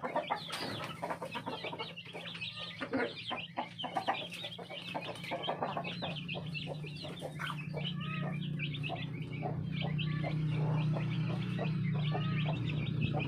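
A brood of chicks peeping: many quick, high chirps, with the odd low cluck from the hens among them. A steady low hum runs underneath and grows louder in the second half.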